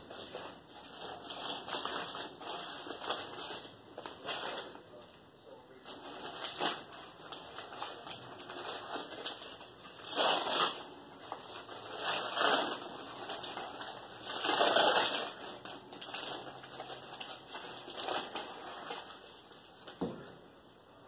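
Irregular crunching and rustling, with three louder bursts a little past the middle.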